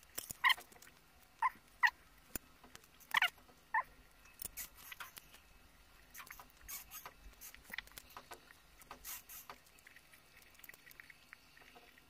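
Close-miked eating sounds: chewing with wet mouth clicks and smacks, and a few short squeaky sounds in the first four seconds.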